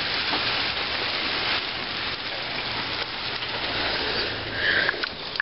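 Hail pelting down hard: a steady, dense hiss of countless small impacts.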